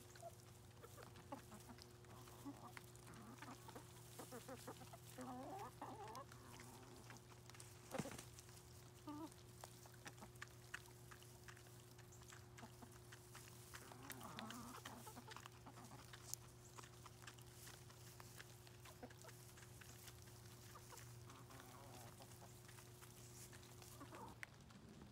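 Backyard chicken flock clucking softly while feeding, with scattered small clicks and one sharper tap about eight seconds in, over a faint steady hum.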